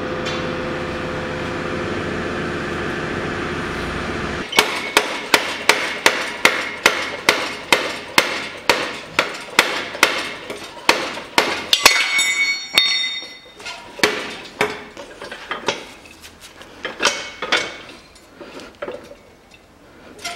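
A steady hum cuts off about four seconds in. Sharp metallic clicks follow, about two a second, with fainter knocks later, as a car's coil spring is compressed on its strut in a floor-standing spring compressor.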